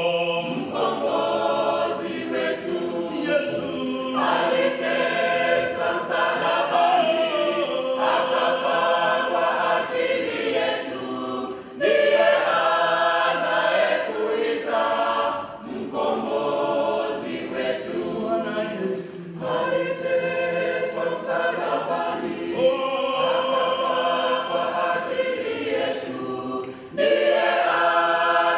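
A mixed choir of men's and women's voices singing a gospel hymn in phrases. The singing swells louder with a new phrase about twelve seconds in and again near the end.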